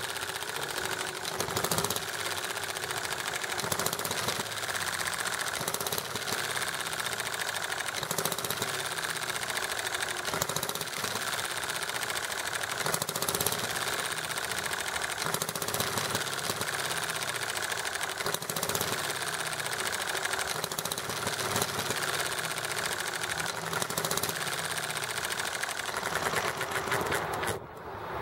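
Enjomor 6cc hit-and-miss model gasoline engine running with a rapid, steady mechanical clatter. Near the end the sound drops off suddenly.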